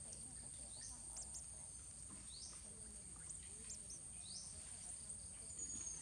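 Thin, high bird chirps: a rising chirp about every two seconds, with short faint cheeps between, over a steady high-pitched whine.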